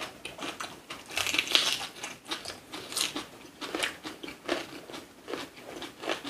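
Close-up chewing and biting of food: irregular wet clicks and crunches, with a louder crunchy bite about a second in.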